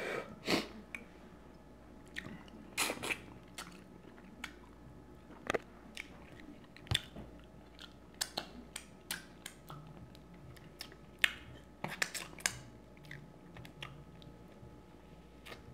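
A person chewing and biting seafood-boil crab and shrimp in butter sauce close to the microphone, with irregular short wet clicks and crunches.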